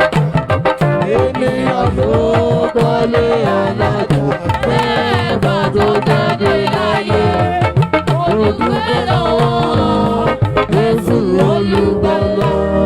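Lively Yoruba church praise music driven by fast hand drums and percussion, with singing voices over it.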